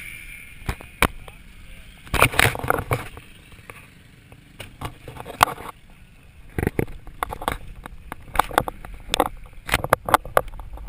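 Irregular sharp knocks and clicks from a handheld GoPro being carried and handled.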